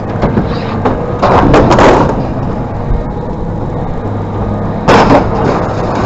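Scrap metal being thrown off a truck during unloading: two loud crashes, the first spread over nearly a second and the second sharper about five seconds in, over a steady low hum.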